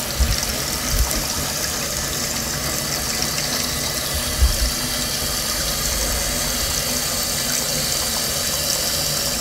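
Toilet tank refilling through a newly installed fluid level control valve (fill valve): a steady rush and hiss of water running into the tank, with a few low bumps in the first half.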